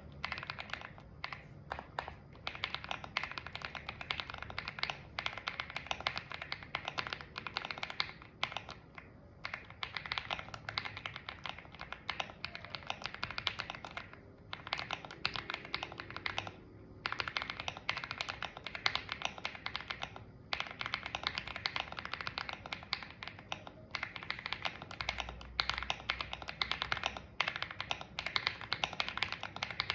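Typing test on a Leobog Hi75C Pro mechanical keyboard with Akko Cream Yellow linear switches and Cherry-profile keycaps: dense runs of key presses, broken by short pauses every few seconds.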